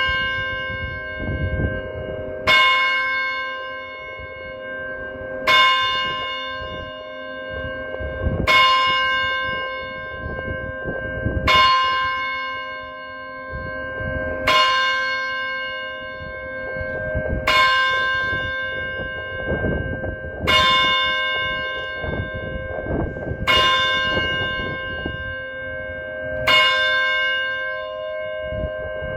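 A single tower bell tolling the hour, heard at close range from inside the belfry: nine identical strikes about three seconds apart, each ringing on and dying away until the next.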